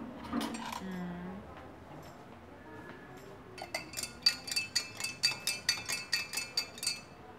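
A metal spoon stirring lemonade in a glass pitcher, clinking rapidly against the glass, several ringing clinks a second, from about halfway in until just before the end.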